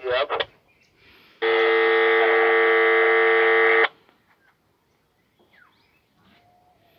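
A loud, steady electronic buzz tone lasting about two and a half seconds, starting abruptly about one and a half seconds in and cutting off just as abruptly.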